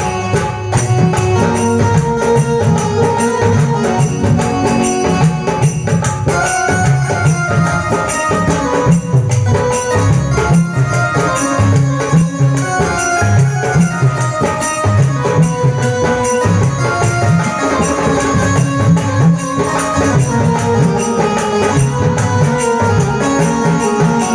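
Loud music with a steady drum beat under sustained melody lines.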